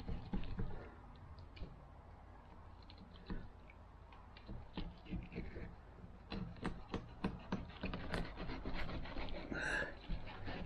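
Fillet knife cutting along the backbone of a lingcod as it is filleted: a run of short ticks and scrapes from the blade on bone and the table, scattered at first and coming thick and fast from about six seconds in.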